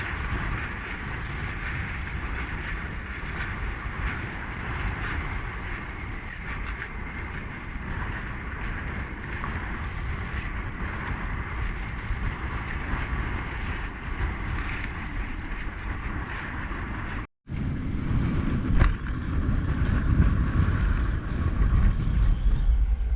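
Strong wind buffeting the microphone over choppy water around a kayak, a continuous rushing noise. After a brief cut about 17 seconds in, the low wind rumble gets louder.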